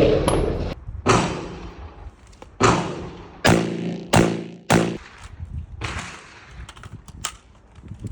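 Five gunshots fired at a shooting range at uneven intervals over about four seconds, each cracking sharply and then ringing away, followed by a fainter shot and a few light clicks near the end.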